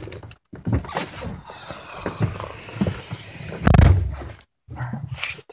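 Rustling and irregular knocks from a phone camera being moved about inside a pickup's cab, with a heavy low thump nearly four seconds in.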